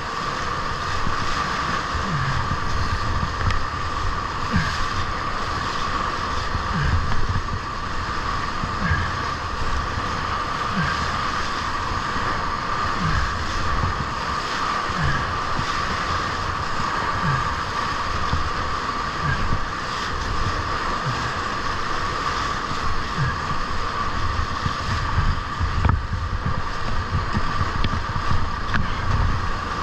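Whitewater of a breaking river wave rushing steadily around a surfing kayak, with irregular low thuds and wind buffeting the microphone.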